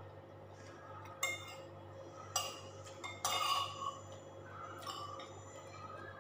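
Metal spoon and fork clinking and scraping against a plate: two sharp clinks a little over a second apart, then a longer scrape about three seconds in.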